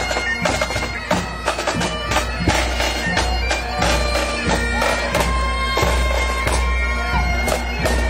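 Pipe band playing on the march: Great Highland bagpipes sound steady drones under the melody, with snare drums and a bass drum keeping the beat.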